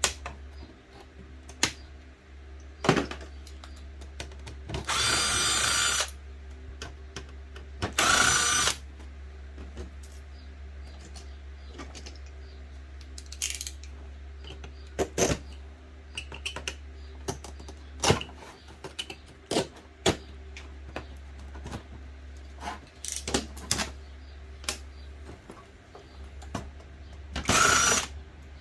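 A power screwdriver whirring in three short runs of about a second each, driving screws out of a plastic electronics housing, amid frequent clicks and taps of plastic parts and screws being handled. A steady low hum sits underneath.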